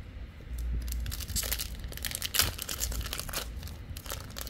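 A Digimon card booster pack wrapper being crinkled and torn open by hand, a run of irregular crackles that thickens about a second in.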